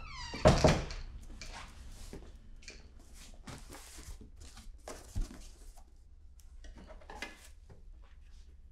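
A loud thud about half a second in, then light rustling and knocks from a cardboard moving box being handled and set down, with a softer thump about five seconds in.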